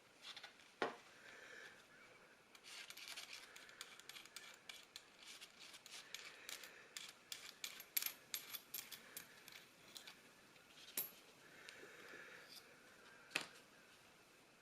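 Small clicks, taps and light rustling of things being handled, thickest through the middle, with a sharper knock about a second in and another near the end.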